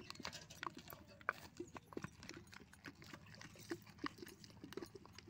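Hand-held stone muller knocking and scraping against a flat grinding stone as soaked urad dal and rice are ground into batter: faint, irregular clicks, several a second.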